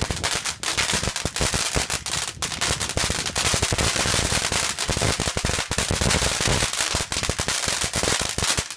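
Firework going off in a rapid, continuous string of sharp cracks and bangs, many a second, that stops near the end.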